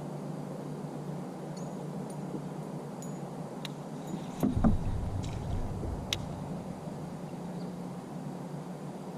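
Handling noises in a small plastic fishing kayak: a few sharp clicks and one dull knock about halfway through, over a steady low hum.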